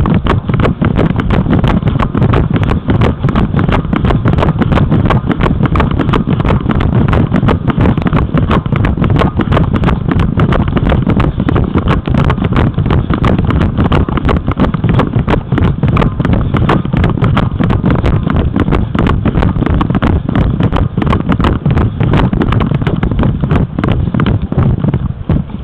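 Strong wind buffeting the microphone as a loud, steady low rumble, with many small clicks and knocks throughout.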